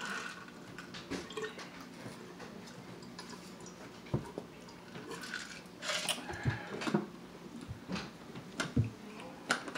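Swallowing gulps while drinking water from an insulated steel water bottle, with scattered small clicks and soft knocks. Near the end the bottle is lowered and its lid is turned closed.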